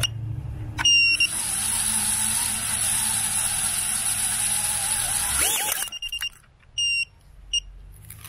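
A micro FPV quad's tiny 1103 11000kv brushless motors spin up with a steady high-pitched whine for about five seconds, then wind down with a falling pitch. With the propellers mounted backwards it fails to lift off and flips over. Short high beeps come just before the spin-up and a few times after it.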